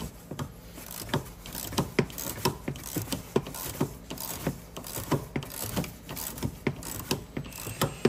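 Hand ratchet clicking in repeated strokes, about two or three sharp clicks a second, as a T50 Torx socket backs out the seat belt pretensioner's anchor bolt.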